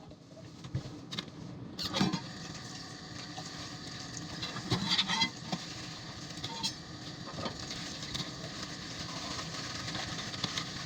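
Steady hiss of food cooking on the stove, building over the first few seconds, with a few sharp metal clatters about two and five seconds in.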